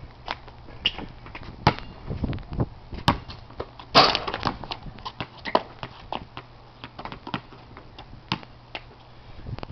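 A basketball bouncing and knocking on a concrete pad in a string of sharp single thuds. About four seconds in comes the loudest hit, the bang of the backyard hoop's rim and backboard as the ball is dunked and the rim is grabbed, with a short rattle after.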